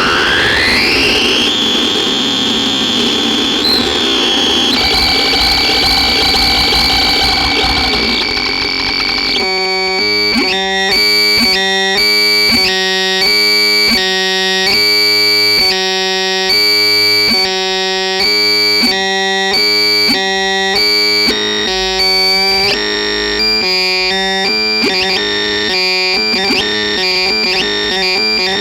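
Harsh, noisy synthesizer. A rising sweep over a noise wash opens it, and about nine seconds in it turns into a fast, choppy sequence of stacked tones switching on and off.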